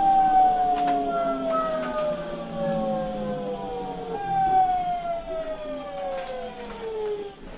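GTO-VVVF inverter of an Osaka Municipal Transportation Bureau 66 series subway train whining in falling pitch as the train brakes, the tones stepping back up once about four seconds in before gliding down again and fading out near the end as the train comes to a stop.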